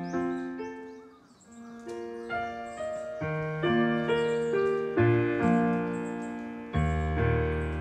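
Background piano music: a slow piece of single notes and chords that ring and fade, with a short lull about a second in and a deep bass note coming in near the end.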